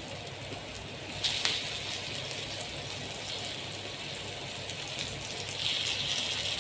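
Hot tempering oil with mustard seeds, curry leaves and green chillies sizzling in a frying pan as steamed idlis are laid into it. The hiss is steady and gets a little louder with a light tap a little over a second in.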